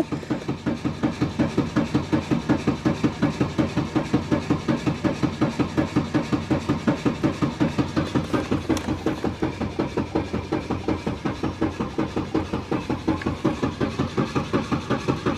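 Starter motor cranking an old Volvo's 2.3-litre petrol engine in one long, unbroken crank: an even chugging of about five or six compression beats a second. The engine never catches because its fuel injectors are disconnected. Heard from inside the car.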